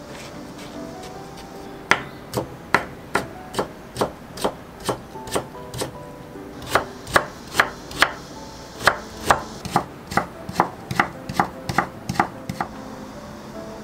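Chef's knife julienning thin carrot slices on a wooden cutting board: a steady run of crisp strikes through the carrot onto the board, about three a second. The strikes begin about two seconds in, quicken near the end, and stop just before it.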